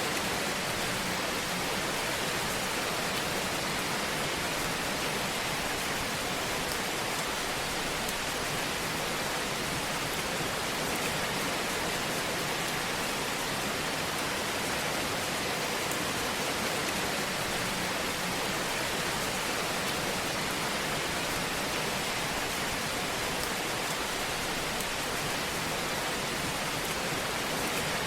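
Fire burning in a fireplace, heard as a steady, even hiss with no letup.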